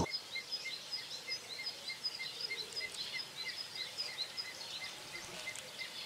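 Booted eagle chicks in the nest giving a steady run of short, high peeps, about three a second, as they beg while the adult feeds them.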